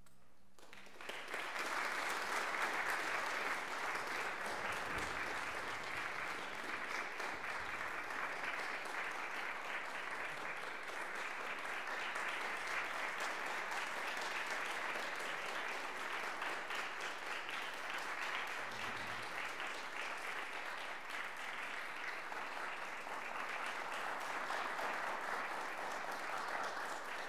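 Audience applause breaks out about a second in and carries on steadily as dense, even clapping.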